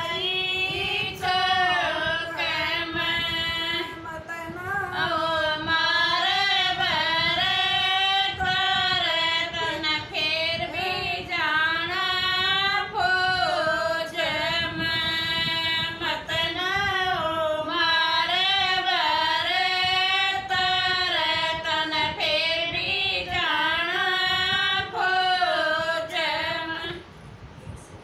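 Women singing a Haryanvi folk song together, voices only with no instruments. The singing stops about a second before the end.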